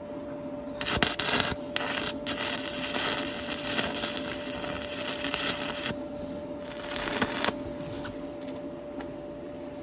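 Stick arc welding with a 2 mm 7018 electrode on a Migatronic Focus Stick 160: the arc crackles and sizzles for about five seconds, then again briefly about seven seconds in, over a steady hum. These are tack welds fixing a steel bracket to the ATV frame.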